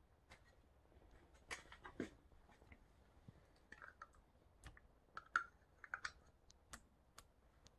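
Faint, irregular clicks and small taps of a plastic spatula scraping cashew cream out of a small plastic container into a plastic mixing bowl.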